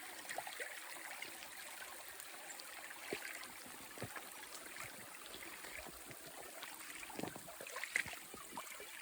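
Shallow creek water trickling and running over rocks, with a few soft knocks scattered through it from rubber boots stepping on the creek bed.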